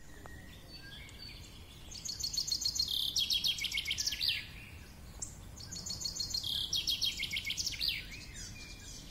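A songbird singing two song phrases about four seconds apart, each a fast high trill of about two seconds that drops lower partway through and ends in a quick flourish, with fainter bird calls in the background.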